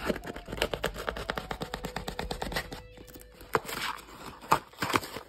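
Cardboard mailing box (USPS Small Flat Rate Box) being torn open by hand: a rapid run of crackling rips and tears, with several louder rips in the last second and a half.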